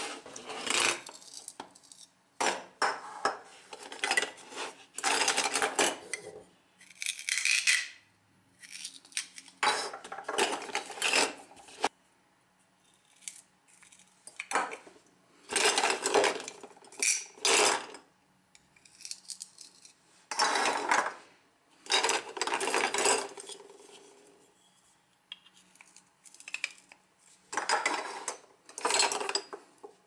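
Plastic toy fruit pieces knocking together and rubbing as they are rummaged in and lifted out of a plastic bowl, in irregular bursts of clatter with short quiet gaps.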